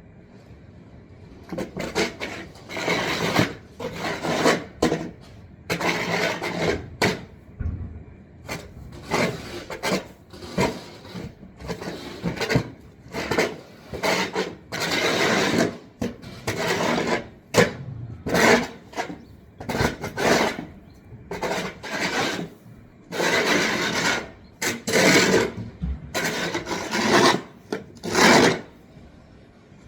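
Repeated rough rasping strokes, about one every second or so, each lasting up to a second and a half.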